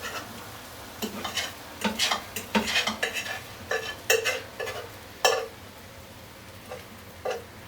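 A utensil scraping and knocking in a frying pan as egg is stirred, in irregular strokes that are busiest over the first five seconds and thin out to a few soft taps near the end.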